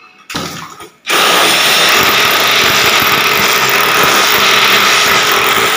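Electric drill starting abruptly about a second in and then running steadily at full speed, boring a hole through a wall.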